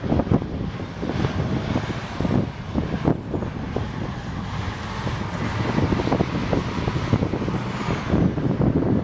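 Loaded Caterpillar 793D mining haul truck driving past under a heaped load, its large V16 diesel engine running with a steady deep drone.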